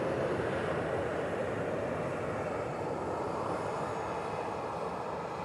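Boeing 737-800's CFM56-7B26E jet engines running at low taxi thrust as the airliner rolls slowly past. It is a steady, even rumble that slowly gets quieter as the jet moves away.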